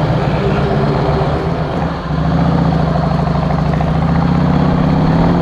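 Harley-Davidson Heritage Softail's V-twin engine idling steadily while the bike waits at a traffic light. About two seconds in the sound dips briefly, then runs on a little louder.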